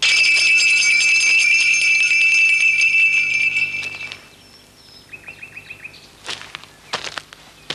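A crotal (sleigh-type) bell mounted on a garden gate, jangling loudly and ringing on before dying away after about four seconds. A second, shorter and fainter jingle follows about a second later.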